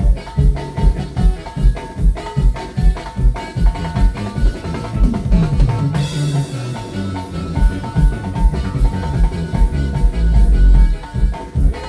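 Loud duranguense dance music from a sound system, with a steady thumping drum beat and a crash about six seconds in.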